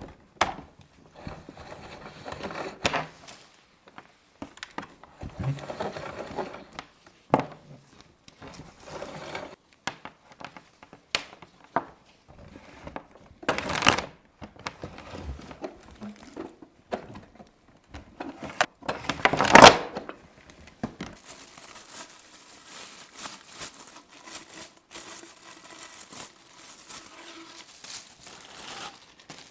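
Packaging being handled during an unboxing: plastic wrapping crinkling and tearing, with cardboard rustling, knocks and scrapes. There are two louder rustles about halfway through, then a longer, hissier crinkling near the end.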